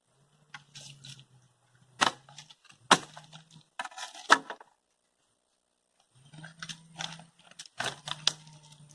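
Dry wood knocking and clattering in a run of sharp, irregular knocks as chunks of dead tree trunk are handled and broken off, over a low hum that comes and goes.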